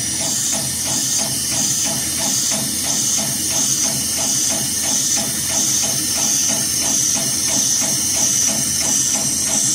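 HighTex 733PLC heavy-duty programmable pattern sewing machine stitching through extremely stiff braided rope, the needle striking in a quick, even rhythm over a steady high hiss.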